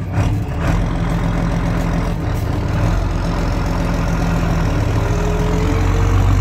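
Tractor engine running steadily while ploughing. It gets a little louder about a second in and again near the end, where a faint rising whine joins it.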